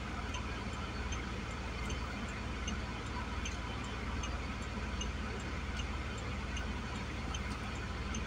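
Vehicle's hazard-light flasher ticking steadily, nearly two ticks a second, over a low steady rumble.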